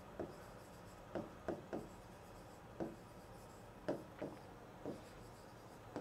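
Stylus writing on an interactive display board: a run of faint, short taps and scratching strokes, unevenly spaced, as a word is handwritten.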